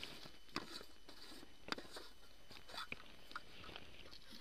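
Screw lid of a wide-mouth plastic bottle being twisted off by gloved hands: a few scattered sharp plastic clicks and crunches, over faint rustling of dry leaves.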